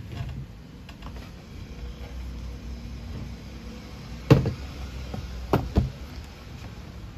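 Objects handled on a wooden desk: one loud sharp knock about four seconds in, then a quick pair of knocks about a second later, over a low steady rumble.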